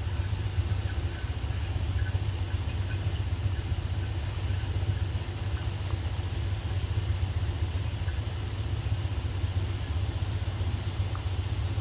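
Steady low roar of shop coolers running full blast.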